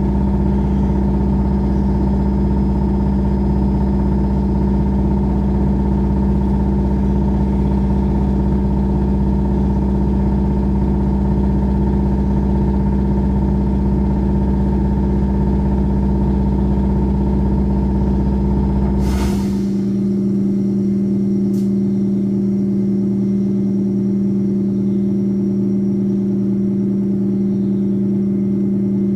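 Steady hum of a SVARZ-MAZ-6235.00 trolleybus's running equipment. About 19 seconds in comes a short hiss of released air, and the deepest part of the hum stops while a steadier mid-pitched hum carries on.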